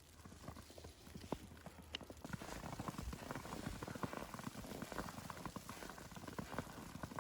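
Footsteps crunching through fresh powdery snow, getting louder and denser about two seconds in.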